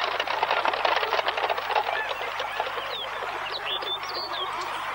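Many birds calling at once in a dense, chattering chorus, busiest in the first two seconds, with a few short gliding chirps standing out later.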